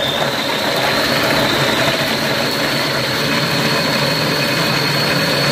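Small countertop food processor running flat out, grinding old muffins into breadcrumbs: a steady motor whine over the rush of crumbs churning in the bowl, the whine's pitch creeping slightly higher.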